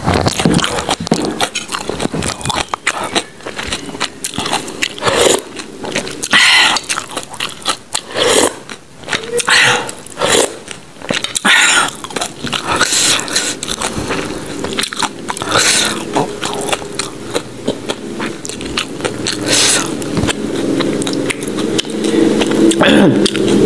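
A person chewing and biting food right at a clip-on microphone, with many short crunches and wet mouth sounds.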